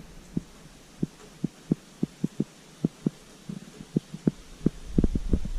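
Irregular soft low thumps, two or three a second, with a low rumble rising near the end.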